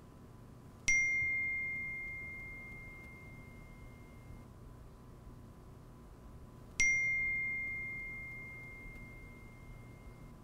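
A phone notification ding sounds twice, about six seconds apart: each is one clear high tone, struck sharply and then fading away over about three seconds.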